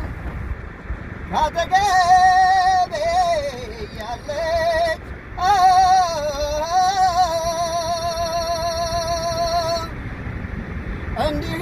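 A singer holding long, wavering notes with heavy vibrato, in three drawn-out phrases with short breaths between them and a fourth beginning near the end.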